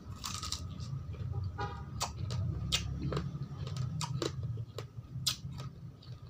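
A person biting into pomegranate and chewing the arils, with irregular sharp crunches and wet clicks as the seeds break.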